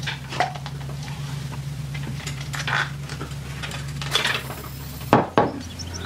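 Light clicks and clinks of a plastic syringe and needle being handled against the copper tubing of a small homemade evaporator, over a steady low hum. Two sharper clacks come about five seconds in.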